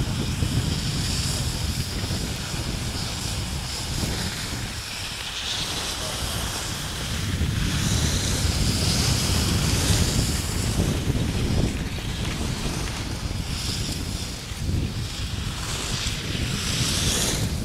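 Wind buffeting the microphone of a camera carried by a skier going downhill, a steady low rumble. Over it, the hiss of skis sliding on groomed snow swells and fades every second or two.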